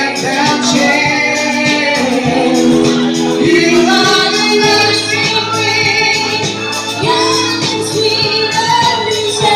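A singer's voice, amplified through a handheld microphone, singing over accompanying music.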